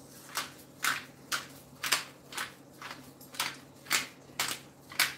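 Hand-twisted pepper mill grinding pepper, one short grinding stroke about twice a second, about ten in all.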